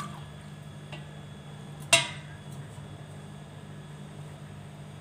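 A single sharp clink of kitchenware, a pot or dish struck once about two seconds in and ringing briefly, over a steady low hum.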